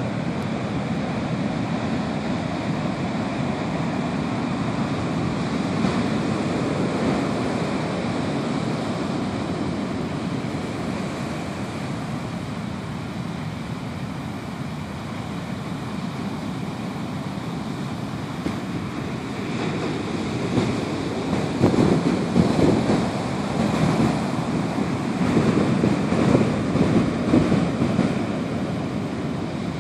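Ocean surf from large breaking waves, with foam washing up a sandy beach: a continuous rush of water noise. It eases slightly midway, then grows louder and more uneven in the last third as bigger waves break.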